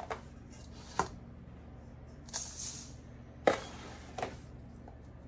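A metal scoop scooping granulated sugar from a clear canister and tipping it into a stainless steel mixing bowl: four sharp clinks of the scoop and two short hisses of sugar pouring.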